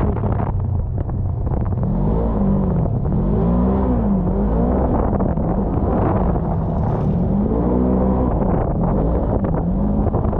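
ATV or side-by-side engine being ridden off-road, its revs rising and falling several times as the throttle is worked. Wind buffets the microphone throughout.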